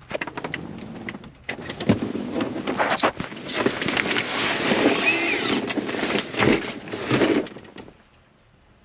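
Objects being handled and rummaged through, a run of irregular clattering knocks and rustling that stops near the end.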